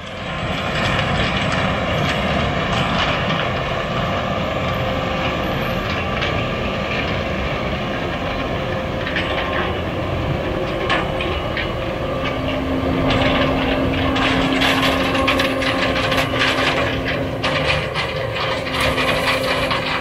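Heavy farm machinery running steadily at harvest, with a lower hum joining about twelve seconds in and a spell of clicking and rattling through the second half.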